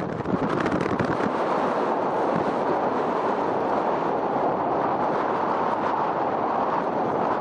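Strong wind blowing hard across the microphone, a dense steady rush with fine buffeting that comes in sharply at the start.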